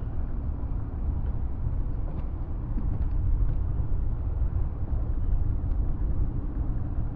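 Steady low rumble of a car driving slowly on a wet street, heard from a camera mounted on its roof: road and wind noise with a faint engine hum.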